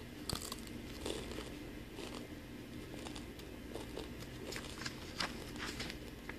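A young child chewing crunchy food close to the microphone: irregular crunching bites and chews, a few every second.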